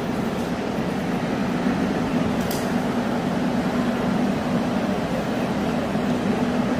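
Steady mechanical hum and rumble of a railway station platform, with a low droning tone, and one brief high squeak about two and a half seconds in.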